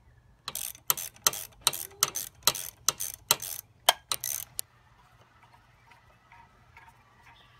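Socket ratchet clicking in a quick, uneven run for about four seconds as it backs out the spring-loaded bolts of a dirt bike's clutch pressure plate, then stopping.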